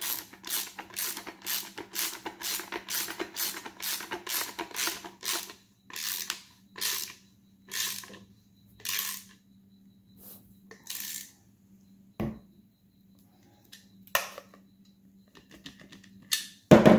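Ratchet wrench tightening a 9/16 bolt on a sand-anchor auger. It clicks in quick strokes about two or three a second, slows to a few spaced strokes after about five seconds, and stops. A loud knock comes near the end.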